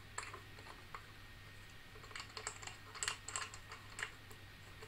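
Faint, irregular small clicks and taps of the mirror diagonal, holding an eyepiece, being fitted by hand into the back of a Skywatcher Skymax 127 Maksutov telescope, with most of the clicks coming about halfway through.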